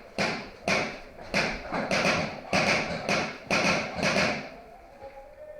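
Footsteps close by, about two a second, stopping about four and a half seconds in.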